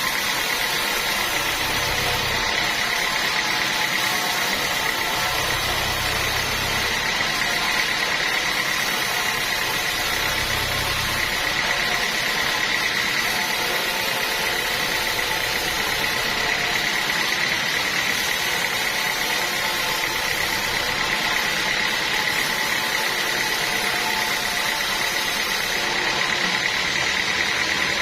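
Sawmill machinery running steadily, with a constant high whine over the noise and a low hum that swells a few times in the first half.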